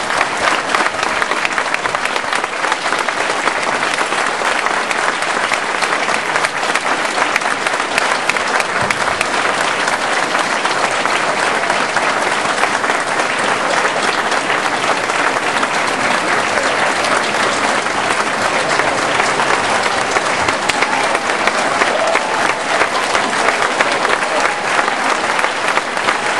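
Large crowd applauding steadily, a dense continuous clapping held at an even level throughout.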